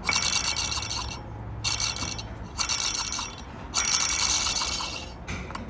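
Pulley and bearing of a removed Chevy Cruze water pump being spun by hand, four runs of rough whirring; the bearing is the part the mechanic singles out as failing.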